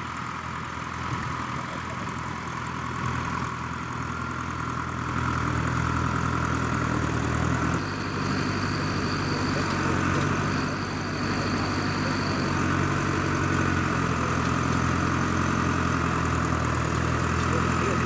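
John Deere 5100R tractor's four-cylinder diesel engine running steadily under load while pulling a two-furrow plough through the soil. The engine gets louder about five seconds in and its note changes around eight seconds in.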